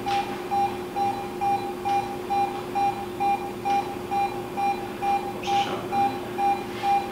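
Patient monitor's pulse-oximeter tone beeping evenly about twice a second, a fast pulse in a patient who is desaturating. A steady lower hum sits under it, with brief rustles of handling.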